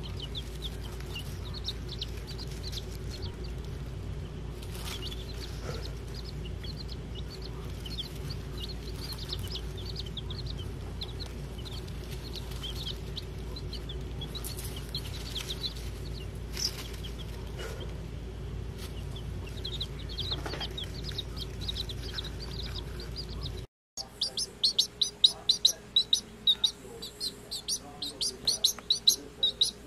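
Baby chicks peeping: faint scattered peeps over a steady low hum, then, after a break about 24 seconds in, a chick peeping loudly and rapidly close by.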